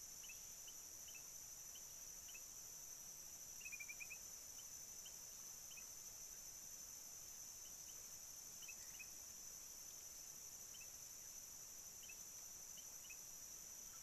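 Faint, steady high drone of forest insects, with short, high bird chirps scattered through it; a quick run of chirps about four seconds in is the loudest.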